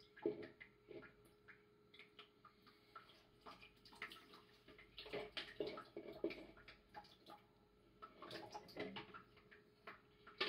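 Faint, irregular trickling and dripping of water seeping through wet sand, with scattered small clicks and crackles.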